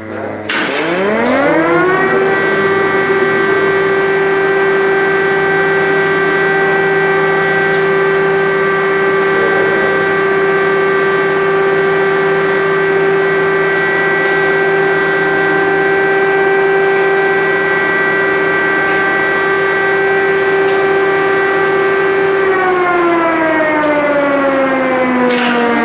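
Civil-defence air-raid siren sounding an alert, the warning of missile strikes. It winds up in pitch over the first two seconds, holds one steady tone for about twenty seconds, then starts to wind down near the end.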